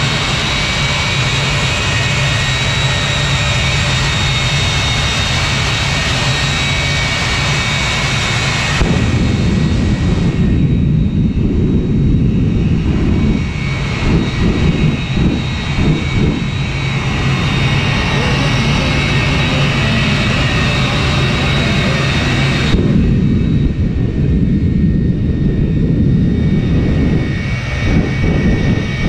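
Jet engine of a jet-powered Chevy pickup truck running at full noise with a steady turbine whine. About nine seconds in, the sound turns to a deeper, heavier roar as the afterburner flames are lit, and later it surges and flutters.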